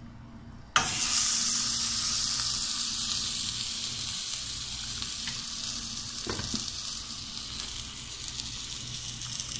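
A pan of chicken and vegetable stew sizzling on a gas stove: the sizzle starts suddenly with a click about a second in, then goes steadily and eases slowly. There is a light knock about six seconds in.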